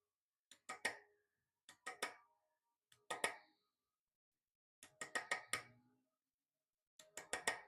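Light, sharp metallic taps in quick clusters of two to four, each tap ringing briefly, about every second and a half. A small tool is raising tiny nicks in a wrought-iron cross-guard, to key a copper and brass inlay mechanically.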